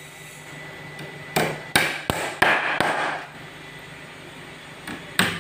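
Hammer blows on the wooden battens of a slatted shipping crate: a quick run of about five sharp strikes a little over a second in, then two more near the end.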